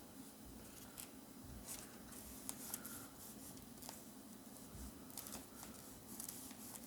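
Foil booster packs being handled: soft crinkles and scattered light clicks, with a faint brief tone twice.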